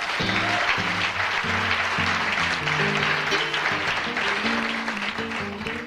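Audience applauding and cheering, with single low guitar notes picked one after another beneath it. The applause thins out near the end.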